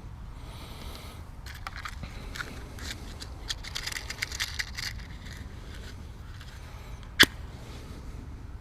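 Dry grass and twigs crackling and rustling as they are handled and stuffed into the fire base of a Kelly Kettle camp stove, over a steady low rumble. One single sharp click about seven seconds in.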